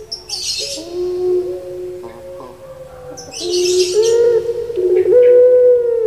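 Puter pelung (Barbary dove, Streptopelia risoria) cooing: two long drawn-out phrases of low held notes that step between two pitches, the second louder. Each phrase starts with a brief hiss.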